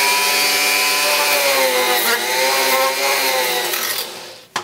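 Dremel-type rotary tool driven through a flexible shaft, its motor running at high speed with a steady whine while the bit grinds away the rim of a hole in polyethylene. The pitch dips slightly about two seconds in, and the motor winds down and stops near the end.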